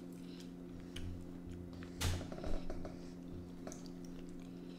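Quiet eating at a table: a few scattered clicks and taps of forks on plates with soft handling thumps, the sharpest click about two seconds in, over a steady low hum.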